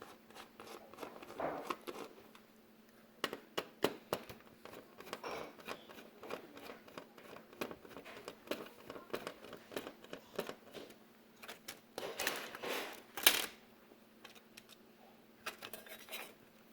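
Small irregular clicks, taps and rustling from hands working on the opened LED TV's parts and cable connectors, with a louder crinkling, scraping stretch about three quarters of the way through.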